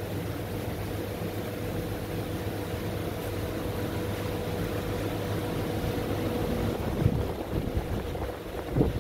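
Steady mechanical hum with a constant low tone, joined by low thumps on the microphone about seven seconds in.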